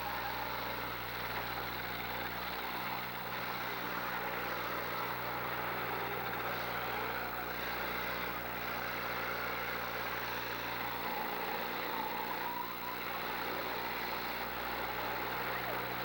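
Several demolition derby cars' engines running and revving together in a steady din.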